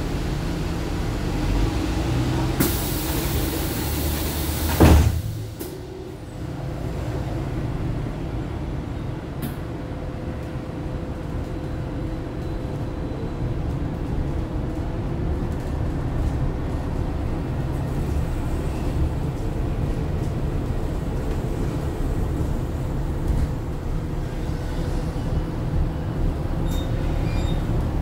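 Foxconn electric low-floor bus: a hiss for about two seconds ends in a loud thump about five seconds in, typical of the air-operated door shutting. After that the bus runs with a steady low rumble and a faint constant hum.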